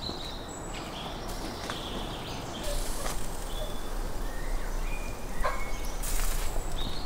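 Outdoor background with scattered short bird chirps, and a few light clicks and knocks as metal skewers of grilled meat are lifted from the grill.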